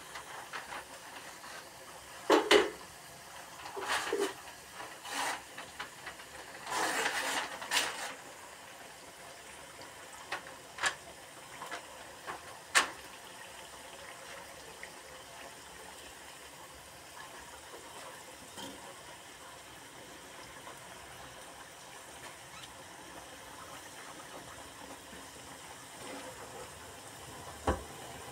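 Potato fries deep-frying in oil in a wok, a steady sizzle and bubble. A perforated metal skimmer clinks and scrapes against the pan several times in the first half and once near the end.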